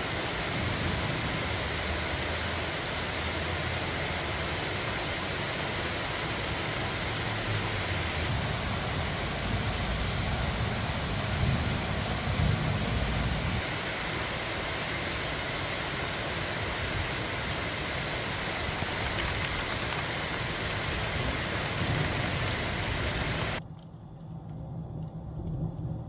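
Heavy rain falling steadily as a dense hiss, with low rumbles swelling in the middle. It cuts off suddenly near the end, leaving a much quieter low hum.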